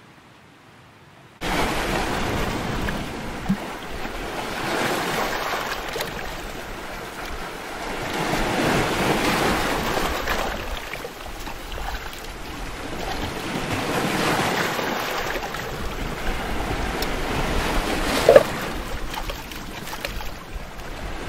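Sea surf breaking and washing over shoreline rocks close by, surging every few seconds, as a metal mug is rinsed in the foam. Near the end the mug knocks sharply against the rock and rings briefly.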